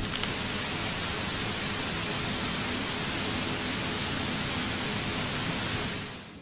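Steady, loud television static hiss, an even white-noise rush, fading out near the end.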